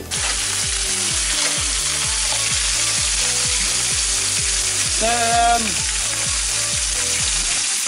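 Crayfish and a whole fish sizzling on a hot barbecue hotplate: a steady frying hiss, with a brief pitched sound about five seconds in.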